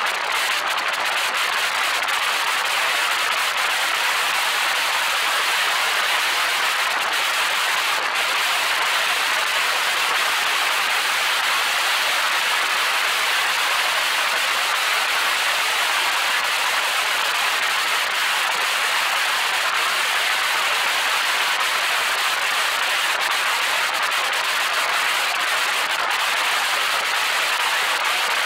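Steady rushing hiss of air and road noise at a camera mounted on the roof of a car driving at highway speed, unchanging throughout, with no engine note standing out.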